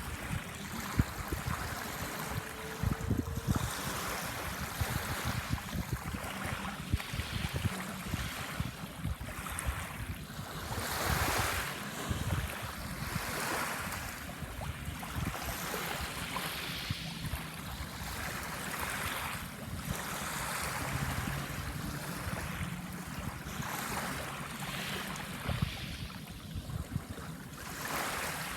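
Small waves washing onto a sandbar shore, one surge of surf about every two to three seconds, with wind buffeting the microphone in low thumps.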